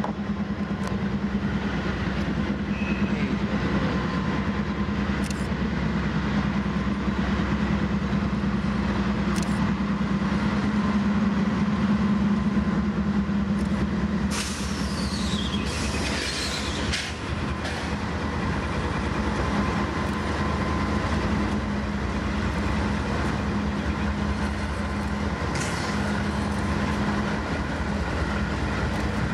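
Freight train passing close by: diesel locomotives run past with a steady low engine drone, then the cars roll on with wheels clicking over rail joints. About halfway through, a brief high wheel squeal falls in pitch.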